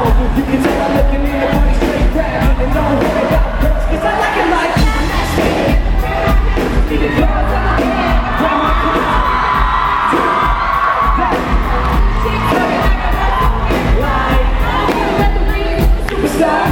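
Live pop-rock band playing loudly with heavy bass, and a crowd cheering and singing along; a held sung note comes about halfway through.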